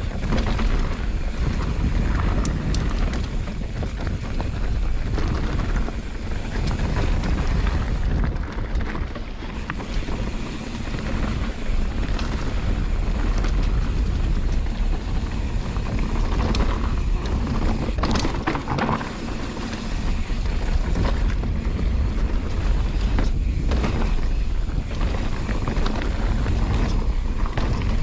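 Wind buffeting a helmet or handlebar camera microphone while riding a mountain bike down a trail, with the steady rumble of tyres over dirt and roots and scattered clicks and rattles from the bike.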